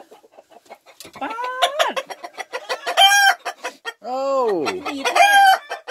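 Chickens clucking and squawking: several drawn-out calls, some rising and falling, with short sharp clucks in between.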